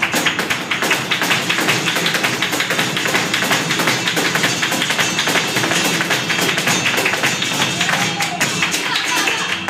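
Flamenco dancer's rapid zapateado footwork, a dense run of heel and toe stamps, over flamenco guitar, cajón and handclaps in an alegrías.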